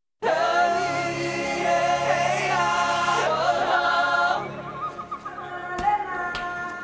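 Vocal music: several voices singing together in sustained, gliding chords that start suddenly a moment in. They are loud for about four seconds, then drop to softer held notes.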